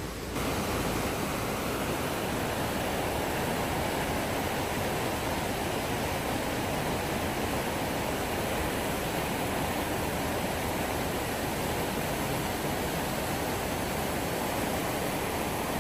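River rapids rushing over rock shelves: a steady, even rush of water that steps up a little in level about half a second in.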